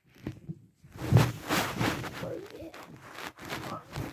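Rustling and bumping handling noise from about a second in, as a phone is moved about and rubbed against clothing.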